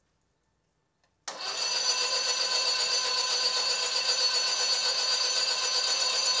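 Starter motor spinning a Porsche 912's air-cooled flat-four with its spark plugs removed: a steady whir with no compression pulses, starting sharply about a second in and cutting off near the end. The engine is being cranked to build oil pressure before its first start.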